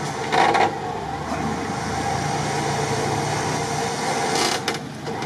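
Toyota Land Cruiser 70-series off-roader's engine running low and steady, with two brief bursts of rushing noise, about half a second in and again near the end.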